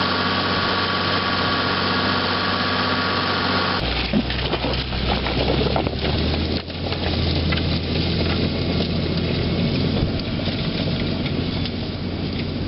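Massey Ferguson 6475 tractor's engine running steadily while ploughing. About four seconds in, the sound changes abruptly to a rougher, noisier rumble with many crackling clicks.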